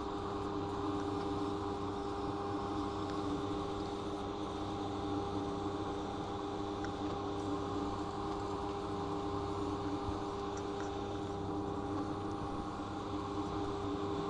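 Commuter train carriage giving off a steady mechanical hum, several held tones over an even rumble, with no change in pitch or level.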